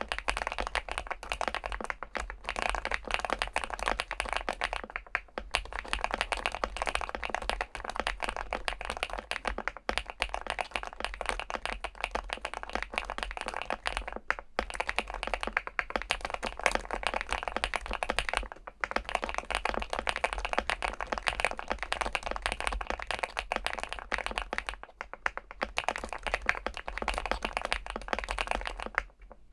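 Fast, continuous typing on a Weikav Stars75s 75% mechanical keyboard with an aluminium case and PBT Cherry-profile keycaps: a dense run of keystroke clacks broken by a few short pauses.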